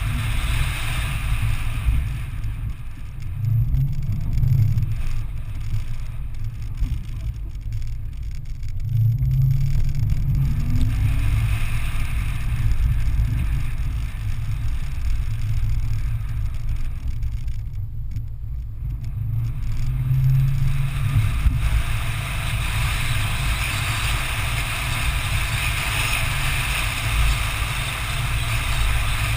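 Toyota 4Runner's engine running at low revs on a dirt off-road track, the rumble swelling several times as throttle is applied. Over the last several seconds a steady hiss rises alongside it.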